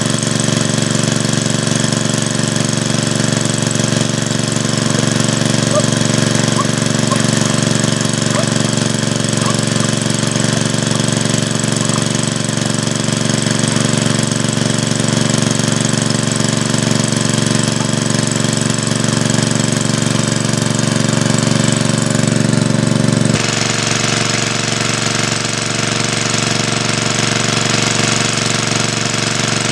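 A small motor running steadily and loudly, its tone changing abruptly about 23 seconds in.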